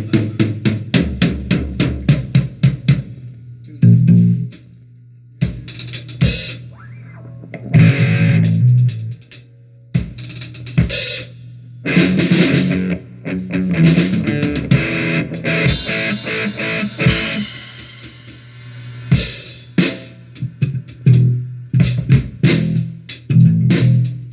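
Music: a rock or funk band with drum kit (snare, hi-hat, cymbals), bass and electric guitar playing a steady beat.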